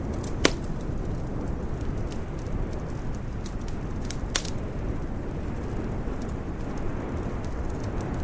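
Wood fire crackling in a fireplace: scattered sharp pops and ticks, the loudest about half a second in and another a little after four seconds, over a steady low rumble.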